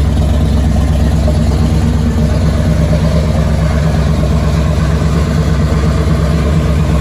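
Supercharged big-block Chevrolet V8 with Holley Terminator X fuel injection, running loud and steady at an even speed with no revving. The engine is still warming up, below its roughly 160-degree operating temperature.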